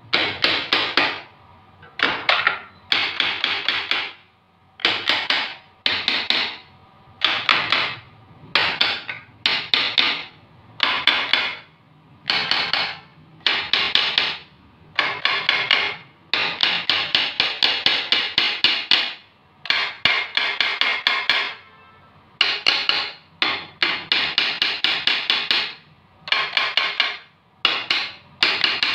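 Hammer striking the metal alternator end of a GX390-powered generator during disassembly. The blows come in quick bursts of rapid taps, each lasting about a second, with short pauses between the bursts.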